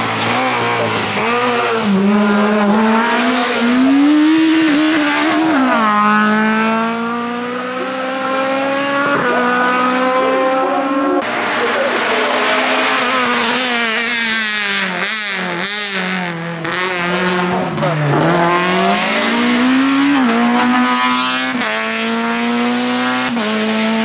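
Racing hatchback engines at full throttle on a hill climb, the pitch climbing steadily through each gear and dropping sharply at the upshifts, several times over.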